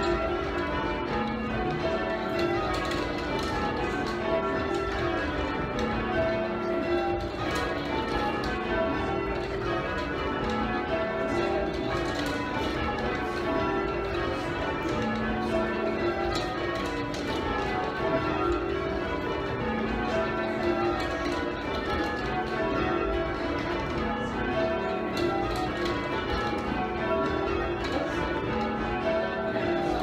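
A ring of eight church bells, cast in 1878 by John Warner and Sons, being change rung by hand, heard from the ringing chamber below: a steady, even succession of strikes, with the tenor's low note recurring every couple of seconds.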